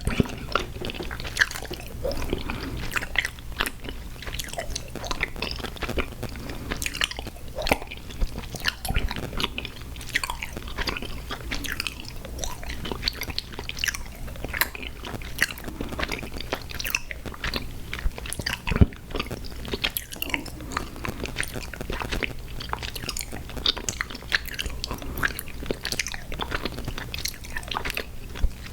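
Close-miked chewing and biting of sour gummy worms cereal: a continuous run of wet chews with small crunches and crackles, no talking. A steady low hum sits underneath.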